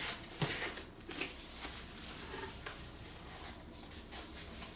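Cardboard and paper packaging being handled: a few short rustles and light knocks in the first second and a half, then quieter rustling.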